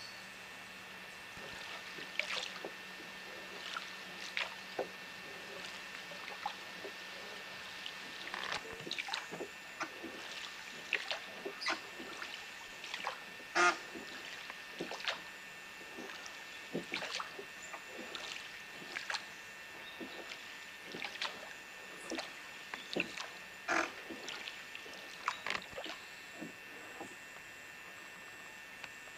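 Rowboat oars dipping into calm river water: irregular light splashes and drips, with a faint steady hum underneath.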